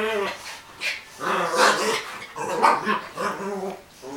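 A Dogo Argentino and a Maltese play-fighting, growling and barking in a run of short bursts.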